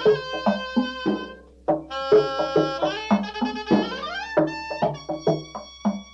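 Instrumental music: a quick rhythm of hand-drum and wood-block-like strikes under held, melodic pitched notes.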